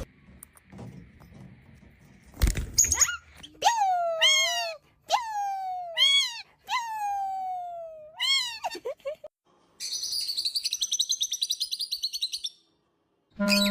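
A bird calling: a run of about seven loud calls that rise and fall in pitch, followed near the end by a fast, high chirping trill lasting a couple of seconds.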